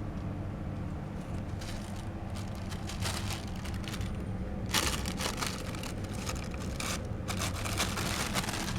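Scratchy rustling and scraping in irregular bursts, growing much denser about halfway through, over a steady low hum: a cat tussling with a cat teaser toy in a tug-of-war.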